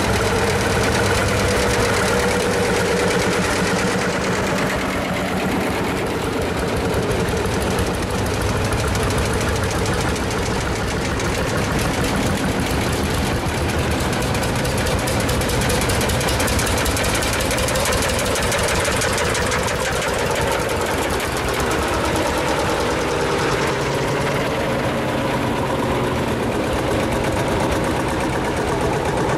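Several vintage single-cylinder diesel tractor engines chugging as the tractors drive past in a line, each engine firing in an even, rapid beat.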